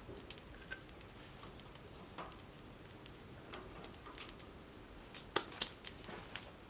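Wood fire crackling in a fire pit: scattered sharp pops and snaps, the loudest a quick pair about five and a half seconds in.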